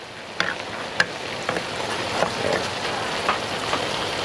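Fish and herb mixture for Lao larb frying in a pan, a steady sizzle with scattered light clicks of a utensil stirring it.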